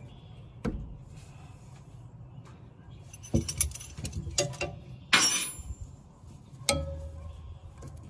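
Metal clicks and clinks of hand work fitting fuel hoses and clamps onto a new inline fuel lift pump: a few separate knocks, the loudest a brief metallic clatter with a ring about five seconds in.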